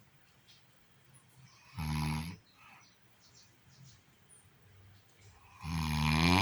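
A sleeping woman snoring: two loud, rasping snores about four seconds apart, the second longer and louder than the first, with quiet breathing between.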